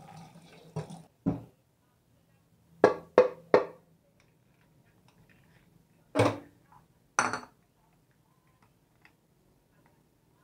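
Sharp knocks and clatters of kitchen utensils or cookware. A quick run of three knocks about a third of a second apart comes about three seconds in, and two longer clatters follow about a second apart.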